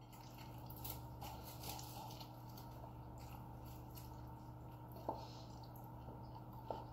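Quiet eating at a table: faint chewing and mouth noises, with a light clink about five seconds in and another near the end, over a steady low hum.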